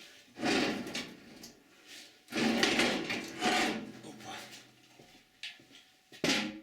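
A heavy fence being handled and slid into place on a homemade woodworking machine's table: two stretches of sliding and scraping, then a sharp knock near the end.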